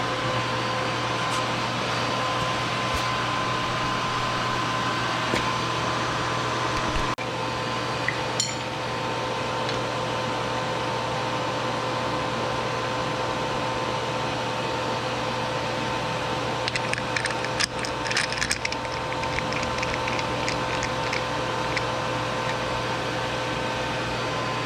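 A steady machine hum with a constant tone, like a fan or heater running. About two-thirds of the way through there is a short run of rapid clicks.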